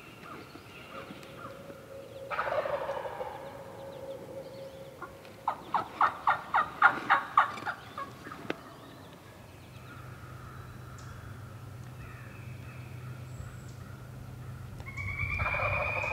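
Wild turkeys calling: a call a couple of seconds in, then the loudest, a rapid series of about eight notes lasting about two seconds, and another call near the end.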